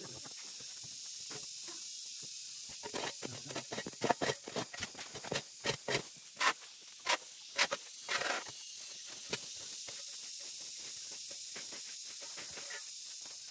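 Sweeping and raking strokes over a concrete yard strewn with leaves and twigs, a broom and a rake scraping about twice a second for several seconds, then stopping. A steady high hiss runs underneath.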